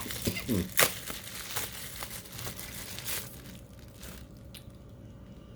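Packaging crinkling and rustling as an item is unwrapped from a box, in quick irregular crackles that die away after about three and a half seconds.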